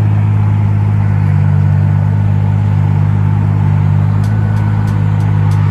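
A car engine running with a steady low drone, holding one pitch without revving.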